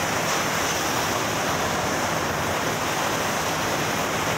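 Steady engine-room machinery noise: an even roar with a faint low hum underneath.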